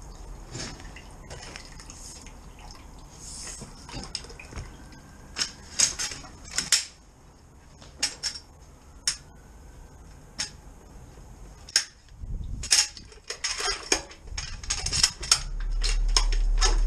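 Irregular metallic clicks and clinks of a drain rod and jetting hose knocking against the inspection chamber as they are fed in. The clinks come scattered at first and then thick and fast, and a low steady hum starts near the end.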